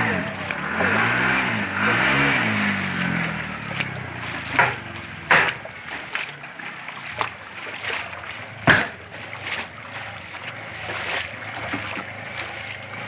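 A vehicle engine revving up and down a few times as it is driven through floodwater, with water splashing and hissing around it. Later come several sharp knocks or thuds.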